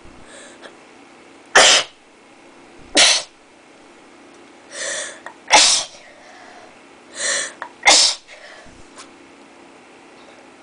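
A person sneezing four times in a row, each sneeze sharp and loud and a second or two apart, with a softer drawn-in 'ah' before the last two. The sneezes are set off by a twisted paper towel tickling the inside of the nose.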